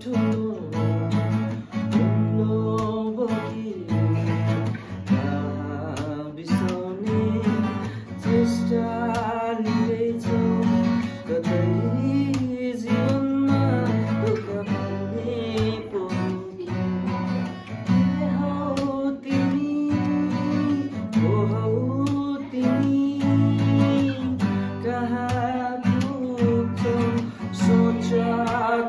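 A man singing a Nepali song to his own strummed acoustic guitar.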